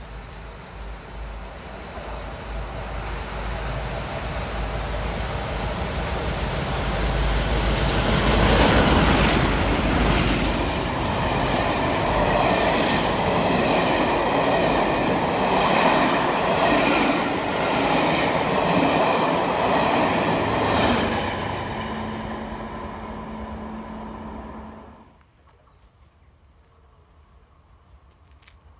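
Pair of Class 33 diesel locomotives hauling a passenger train past at speed. The engines build up as they approach and are loudest as they pass. The coaches follow, their wheels clicking rhythmically over the rail joints, and the sound fades and then cuts off sharply near the end.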